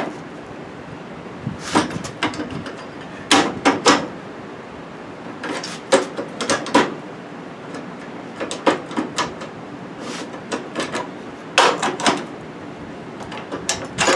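Irregular clusters of sharp metal clanks and knocks as a pipe wrench works a bent steel square-baler rail clamped to a steel bench, bending it straight, over a steady hiss.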